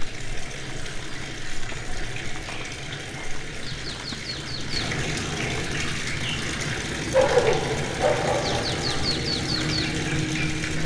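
A bird singing a rapid series of high, down-slurred notes, twice, over a steady background rush.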